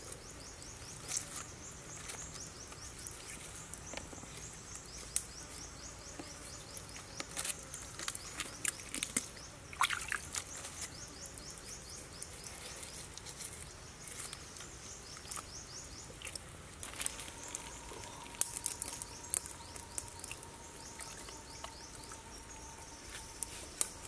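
Forest ambience with insects chirping in a fast, even, high-pitched pulsing, broken by occasional sharp clicks. A steady thin tone joins in during the last several seconds.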